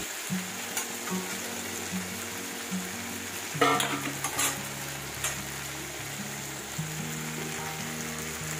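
Sliced vegetables frying in oil in a wok, a steady sizzle, with a spoon scraping and clinking against the pan as they are stirred. The loudest scrapes come about three and a half to four and a half seconds in.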